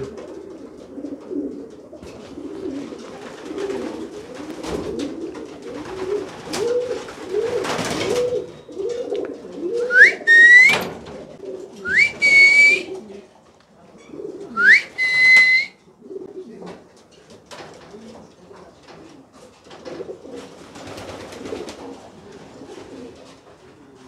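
Homing pigeons cooing in a loft, a low rolling coo repeated over and over. Three loud whistles come about ten, twelve and fifteen seconds in, each rising quickly and then held.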